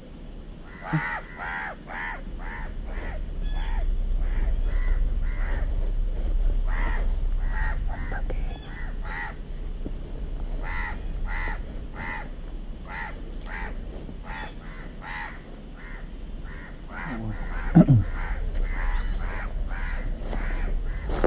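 Crows cawing over and over, many short harsh calls in quick runs, over a low steady rumble. A short, loud, low sound falling in pitch comes near the end.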